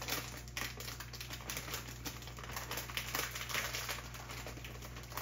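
Saucepan of water heating on a lit gas burner, crackling and ticking irregularly as it comes toward a simmer.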